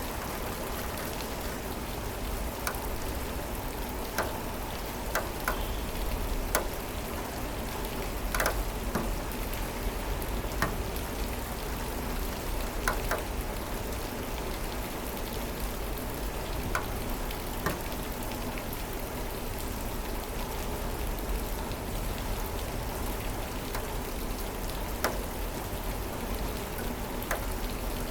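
Steady rain falling, with single drops now and then striking sharply close by.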